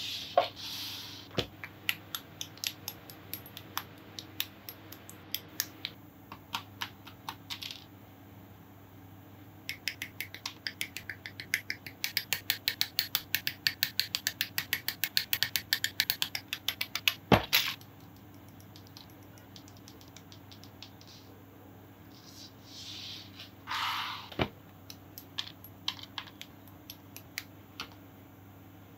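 Plastic model kit parts being cut from the runner and handled: scattered sharp plastic clicks and snips, with a run of rapid clicking, about six a second, for several seconds in the middle that ends in one loud snap. A paintbrush sweeps plastic scraps across the mat briefly near the start and again later.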